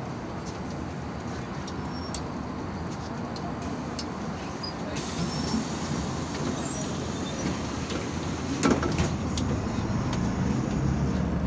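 Inside a MAZ-203 city bus on the move: engine running and road noise, with scattered clicks and rattles. The engine grows louder near the end.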